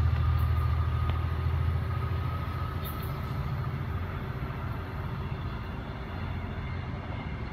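Trinity Railway Express diesel commuter train pulling away, its low rumble fading steadily as it recedes.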